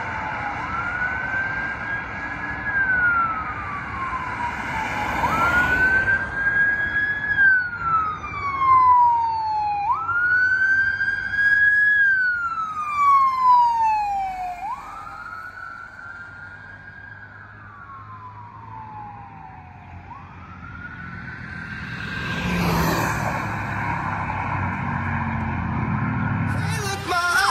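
Emergency vehicle siren on a wail, its pitch climbing quickly and then falling slowly about every four to five seconds, as fire and ambulance units drive past. The siren is quieter for a while about halfway through, then comes back up.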